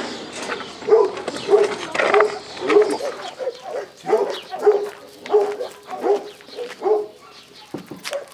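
A dog barking repeatedly in an even rhythm of about two barks a second, pausing near the end.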